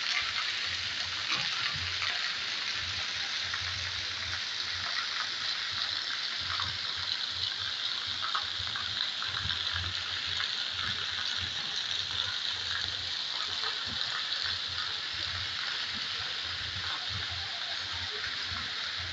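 Heavy rain falling on a wet street: a steady hiss of drops spattering on the pavement and puddles.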